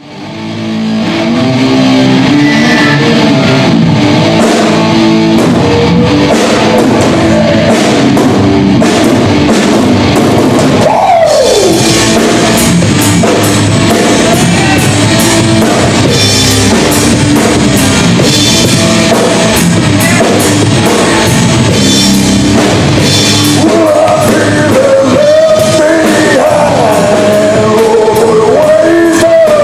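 Live rock band playing: distorted electric guitars, bass and a drum kit, with a vocalist singing. It fades in over the first second or two, and a note slides down in pitch about eleven seconds in.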